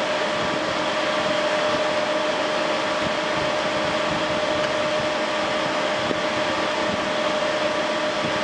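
Steady whir of a running fan, with a constant humming tone in it and no change in level.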